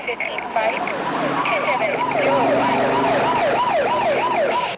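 Police car siren in a fast yelp, its pitch sweeping up and down about three times a second. At first more than one siren overlaps, then a single one carries on and cuts off suddenly at the end.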